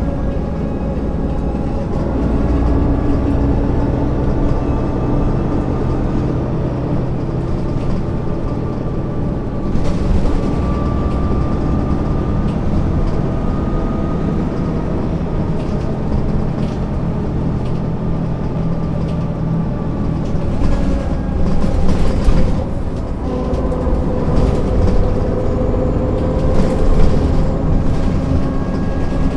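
MAN NG 262 articulated city bus driving, its diesel engine running steadily with the engine note shifting up and down several times as it changes speed. Rattles and knocks come in the second half, loudest about two thirds of the way through and near the end.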